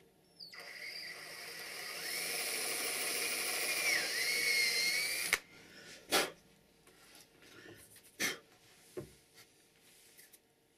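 Power drill with a thin bit drilling a binding screw hole into a cross-country ski, running for about five seconds with a whine that slowly climbs in pitch and dips briefly before it stops suddenly. Then two sharp knocks and a lighter one.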